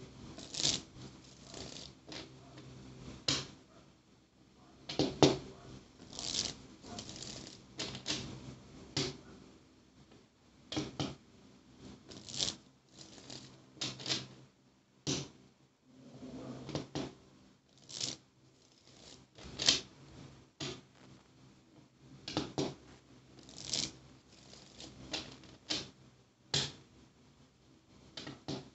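Tarot deck being shuffled by hand, a long run of short, irregular card slaps and swishes as the cards are cut and slid through the hands.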